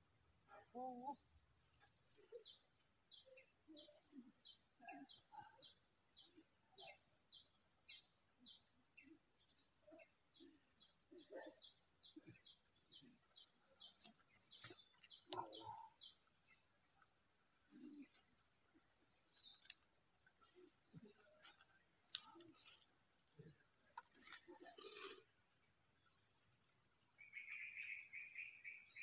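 Steady, high-pitched drone of insects in riverside forest, with a regular pulsing of about two to three ticks a second through the first half, and scattered faint knocks and rustles underneath.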